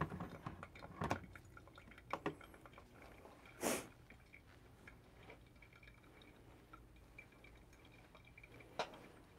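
Faint dripping of brewed coffee draining through the paper filter of an April pour-over dripper during the drawdown after the final pour, with a few light clicks and one brief hiss a little under four seconds in.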